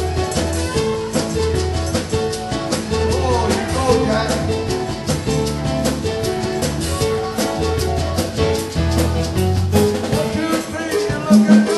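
A small band playing Latin dance music live, with a repeating bass line, drum kit and hand percussion.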